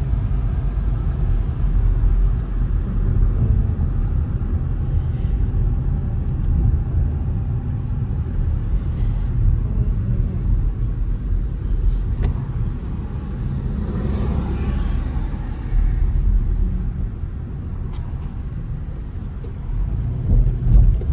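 Steady low rumble of a car driving in city traffic, heard from inside the cabin with the radio off. A brief louder swell comes about two-thirds of the way through.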